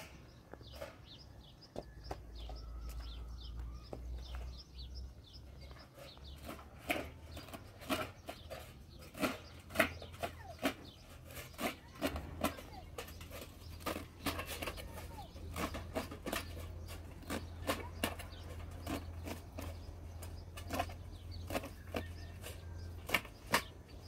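Irregular small snaps and clicks of fresh herb stems being broken and cut by hand over a metal tray, with leaves rustling. Faint bird chirps and a low steady rumble underneath.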